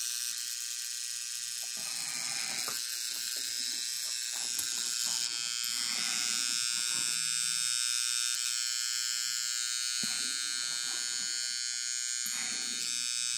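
Small electric motor of a Lionel 671 toy steam locomotive running steadily on test power, giving an even buzzing whine, with a few light handling knocks.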